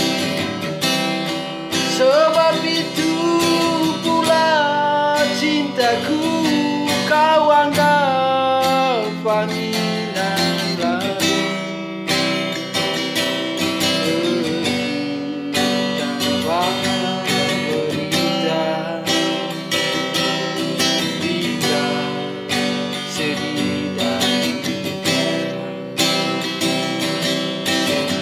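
A man sings while strumming an acoustic guitar, with the voice resting for a few seconds now and then.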